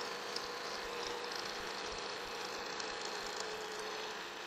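Milling machine cutting metal with a roughing end mill: a steady cutting noise with a faint steady tone underneath.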